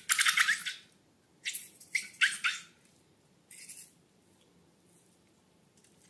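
Slime being squeezed and worked: four short, crackly squelching bursts in the first four seconds, then quiet.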